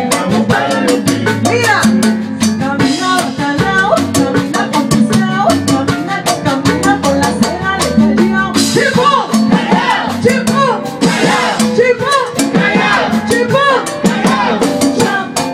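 Live Latin salsa band playing at full volume: drums and percussion keep a fast, busy beat under a bass line and wavering melody lines.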